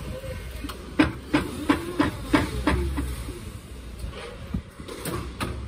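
Rhythmic mechanical clicking, about three sharp clicks a second with a short pitched ring on each, fading after about three seconds.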